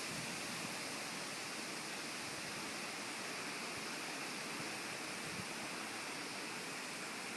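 Strong storm wind blowing, a steady even rushing hiss.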